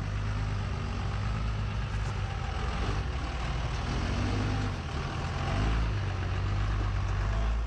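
1998 P-pump 12-valve Cummins 5.9 L inline-six diesel in a lifted M1008 CUCV running low and steady as the truck crawls up a rock ledge, swelling a little about five and a half seconds in.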